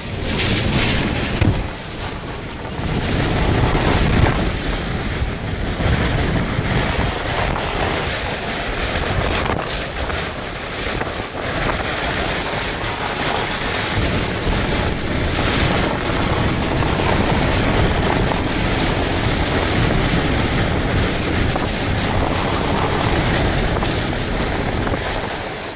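Strong tropical-storm wind buffeting the microphone in a steady, heavy rumble, over waves and choppy water breaking.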